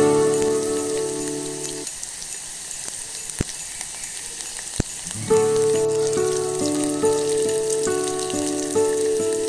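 Potato chips frying in hot oil in a miniature pan: a steady sizzle with fine crackling, and two sharp clicks in the middle. Background music with sustained notes plays over it, dropping out for about three seconds in the middle, when the sizzle is heard alone.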